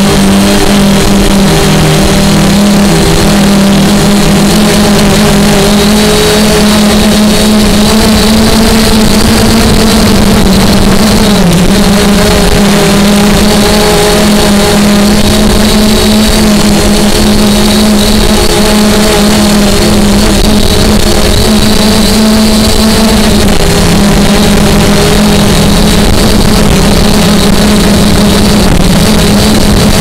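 Aosenma CG035 quadcopter's brushless motors and propellers humming steadily, heard close up from a camera strapped to the drone. The pitch shifts a little a few times, over heavy wind noise on the microphone.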